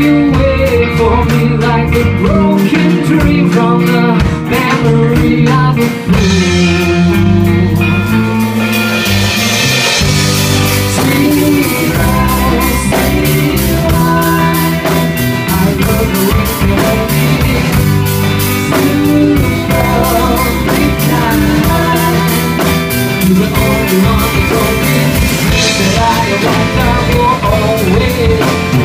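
Live rock band playing a song: strummed acoustic guitar, electric bass and drum kit keeping a steady beat, with a male lead vocal singing.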